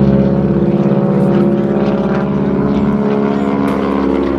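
North American T-6 Texan's nine-cylinder Pratt & Whitney R-1340 Wasp radial engine and propeller running loud and steady as the plane flies a barrel roll, the pitch shifting slightly partway through.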